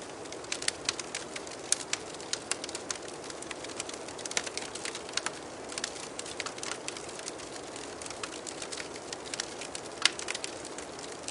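Wood fire crackling, with frequent irregular sharp pops over a steady low rush; one louder pop about ten seconds in.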